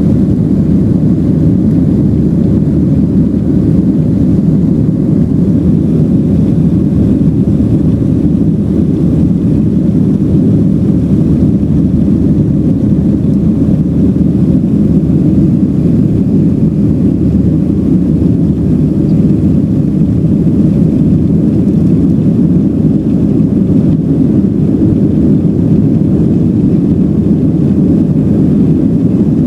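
Steady low roar inside the cabin of a Boeing 737-700 climbing after takeoff: its CFM56-7B engines and the airflow around the fuselage.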